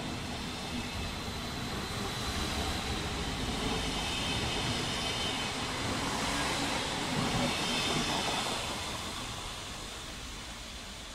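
Stadler GTW electric multiple unit (Thurbo RABe 526) rolling close past the platform as it comes in to stop, with wheel-on-rail rumble and a faint high whine. It grows louder to a peak about two-thirds of the way through, then fades.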